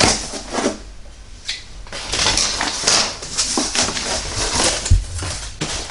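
Cardboard shipping box being opened: packing tape cut and the cardboard flaps pulled apart and folded back, rustling and scraping in irregular bursts, with a thump near the end.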